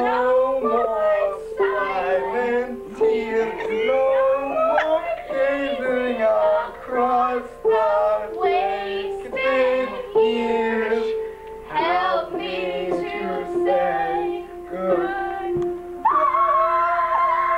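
Amateur singing with upright piano accompaniment: a male voice and a female voice carrying a melody over chords played on the piano. Near the end the sound jumps louder into a long held note.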